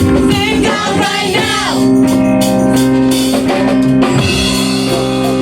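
Live praise and worship music: an organ holds sustained chords over a drum kit, with voices singing.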